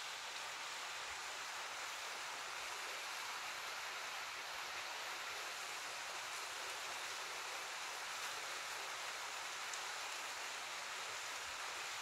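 Small waterfall pouring, a steady even rush of falling water.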